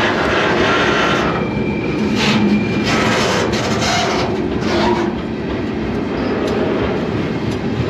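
Freight train rolling, heard from aboard a car: a steady loud rumble and rattle of steel wheels on the rails.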